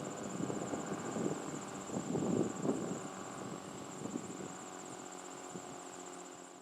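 Outdoor ambience: insects trilling steadily at a high pitch over a low mechanical rumble that swells about two seconds in and then fades away.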